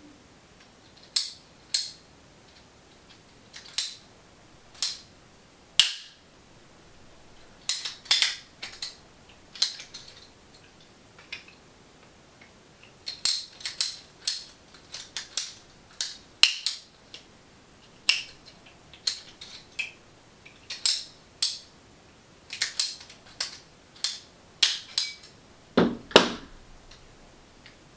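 PVC pipe cutters clicking and snapping as they are squeezed lengthwise through a short piece of 3/4-inch PVC pipe, a sharp click about every half second to a second and a half. Near the end, a heavier thump as the cutters are set down on the wooden table.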